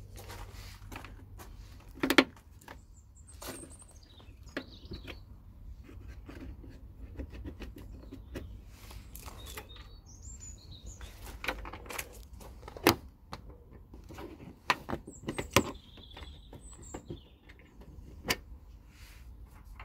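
Plastic push clips and trim being worked loose by hand on a car's plastic front panel cover, giving irregular sharp clicks and knocks, the loudest about two seconds in. Birds chirp several times over a steady low outdoor rumble.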